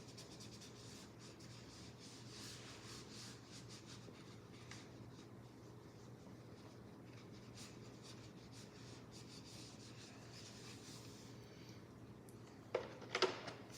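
Faint scratching and rubbing of hands handling the plastic parts of a robot vacuum, over a low steady hum. Near the end come a few sharp plastic clicks as the dustbin is snapped back into place.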